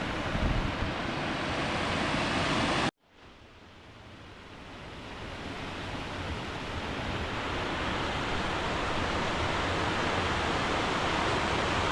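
Steady rush of flowing water. It cuts out abruptly about three seconds in and fades back in gradually.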